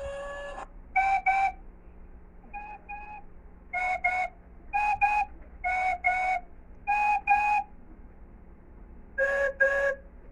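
Train whistle giving pairs of short toots, seven pairs in a row, each blast a chord of several notes. The last pair is lower in pitch, and a long blast cuts off just after the start.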